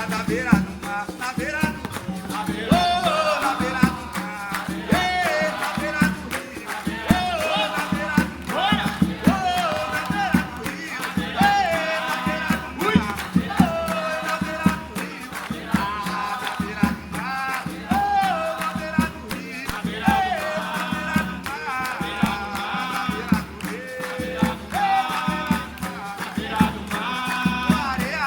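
Capoeira roda music: voices singing short phrases that repeat every couple of seconds, over berimbau and the shaken caxixi rattle.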